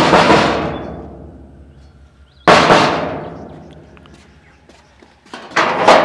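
Sheet-metal gate being banged on by hand: a loud clang at the start, another about two and a half seconds in, and a quick run of several bangs near the end, each ringing on for a second or more.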